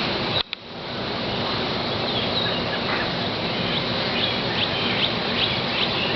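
A large flock of birds calling all around, a dense steady chatter with a run of short, repeated high calls in the second half. The sound drops out briefly about half a second in.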